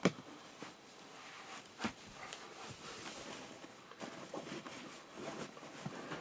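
Scattered light knocks and handling noises, with a sharp knock at the start and another about two seconds in.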